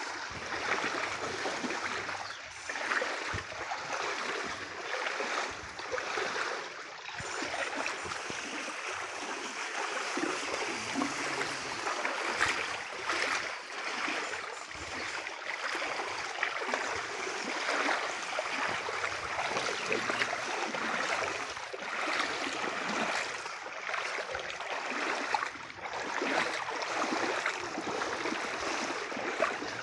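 Splashing and sloshing of people wading through a shallow creek, a continuous, uneven rush of stirred water.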